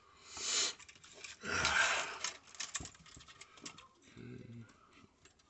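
Handling noises of small parts being worked by hand: two short rustling scrapes, then a few light clicks, and a brief low hum near the end.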